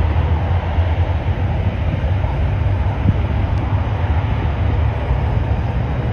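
Steady, loud rumbling roar of a Boeing 737-800's CFM56 jet engines, heard from afar as the airliner rolls out along the runway after landing, mixed with wind buffeting the microphone.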